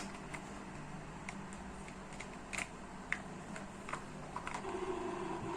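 Light, irregular clicks and taps of small utensils and cookware being handled as meat is put into a frying pan, with a faint steady hum starting near the end.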